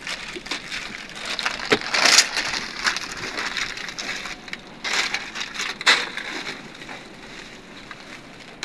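Broken concrete, tile and plastic sheeting being pulled by hand from an opened tomb niche: irregular crunching and crackling, loudest about two seconds in and again around five to six seconds.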